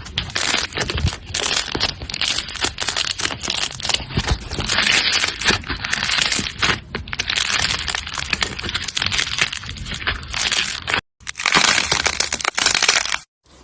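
Slime being squeezed and worked by hand, a dense run of crackling clicks and pops. It breaks off for a moment about eleven seconds in, then resumes and cuts off just before the end.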